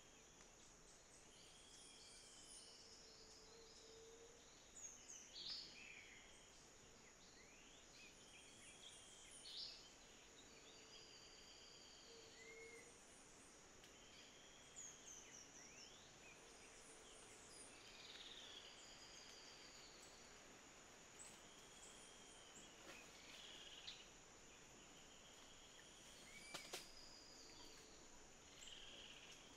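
Faint tropical forest ambience: several birds calling over and over with short arched whistles and chirps, over a steady high insect drone. A sharp click sounds near the end.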